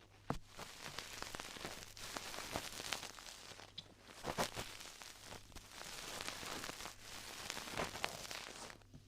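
Close-up ASMR crackling and rustling at the microphone, dense and sharp-edged with scattered clicks, coming in three stretches that stop abruptly near the end.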